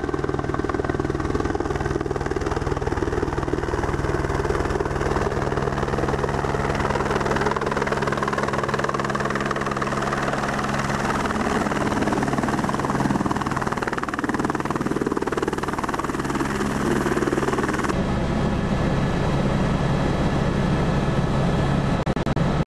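Helicopter flying low overhead, a steady rotor and engine sound with a low hum. About 18 seconds in it cuts to a steadier drone heard from inside the cabin in flight.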